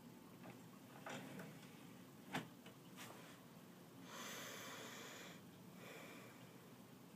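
Kittens moving about on a shelf of books and plastic: a few faint clicks and taps, one sharp tap a little after two seconds in, and a soft rustle lasting about a second and a half from about four seconds in, in an otherwise quiet room.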